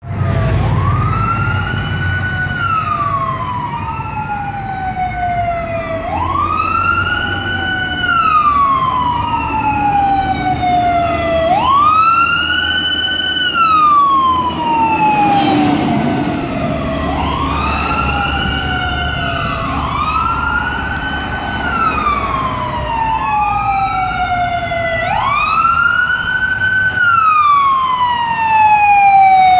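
Fire apparatus sirens wailing, two of them overlapping out of step, each cycle rising quickly and falling slowly, repeating about every three seconds, over a low engine rumble.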